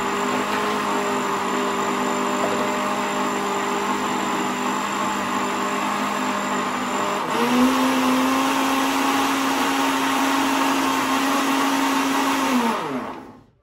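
Countertop blender running steadily, pureeing fresh corn kernels with water. About seven seconds in, its pitch steps up a little. Near the end it is switched off and winds down to a stop with a falling pitch.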